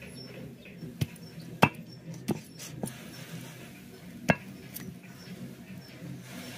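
Sharp knocks of a hand blade chopping goat leg pieces on a wooden block, about six strikes at uneven intervals, the loudest about one and a half seconds and four seconds in.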